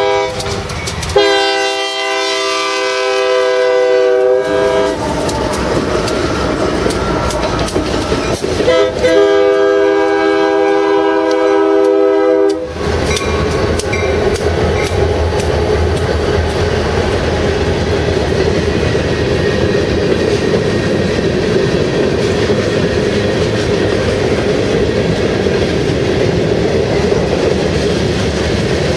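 Locomotive air horn sounding two long blasts about five seconds apart, then the steady rumble of the train rolling past with wheels clacking over the rail joints.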